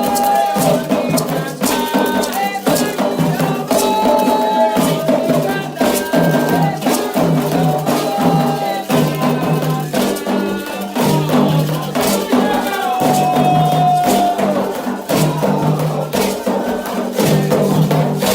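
Candomblé ritual music calling Xangô: singing voices over steady hand percussion, with drum strokes and a shaken rattle.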